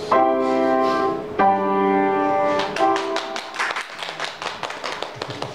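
Keyboard harmonica (melodica) played solo: three held notes, the first two over a second each and the third shorter, followed by a patter of clicks and taps.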